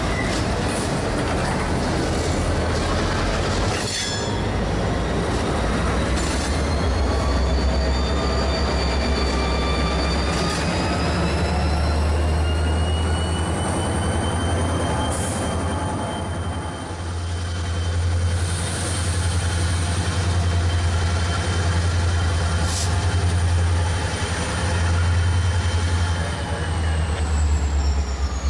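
Diesel freight train running by: steel wheels squeal with several high thin tones that slowly slide in pitch, over the low pulsing rumble of the locomotive engines, which grows stronger about halfway through. A single sharp clank comes about four seconds in.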